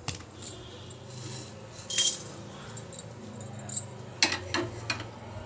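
Light metallic clinks and rattles from a dry iron kadhai as whole spices are set to dry-roast on the gas stove: one clear clink about two seconds in and a few more near the end, over a faint steady low hum.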